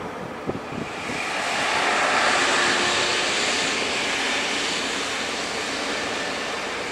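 BR 628 diesel multiple unit pulling out, a rushing engine and running noise that swells to a peak about two and a half seconds in and then slowly fades.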